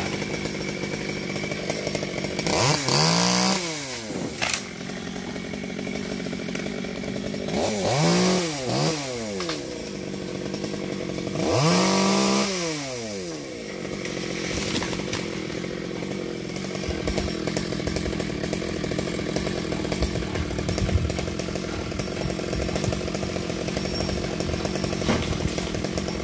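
Chainsaw idling with three short throttle bursts, about 3, 8 and 12 seconds in, each rising in pitch and falling back to idle. Between and after them the saw runs steadily at idle.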